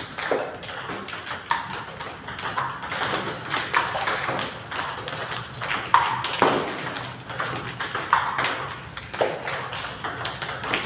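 Celluloid-style table tennis balls being hit and bouncing in a multiball drill: an irregular run of sharp clicks, about one or two a second, from rubber paddle strikes and bounces on the table.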